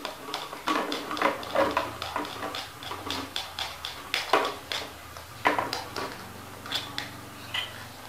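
Plastic toy kitchenware and toy fruit being handled: irregular light clicks and clacks of hard plastic knocking together, a few sharper knocks among them.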